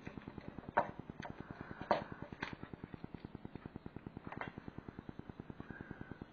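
A few sharp small clicks, the loudest about a second and two seconds in, as a small handmade metal balancer lure and a piece of lead are handled in the fingers, over a fast, even ticking of about eight a second.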